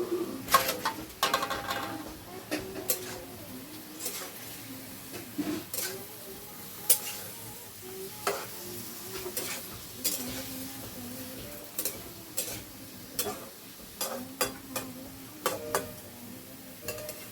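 Chicken and bamboo shoots being stirred in a kadai, with irregular knocks and scrapes against the pan over a steady sizzle.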